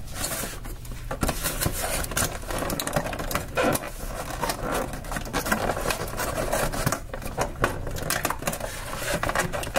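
Hands handling a plastic toy playset in its cardboard box while freeing a small plastic figure: continuous rustling and crinkling with many small clicks and taps.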